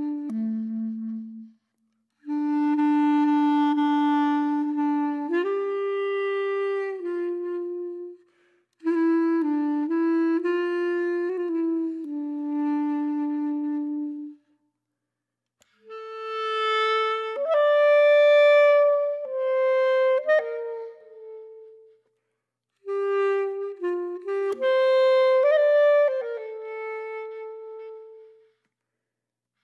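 Background music: a slow solo melody of held notes stepping up and down, in four phrases with brief silent gaps between them.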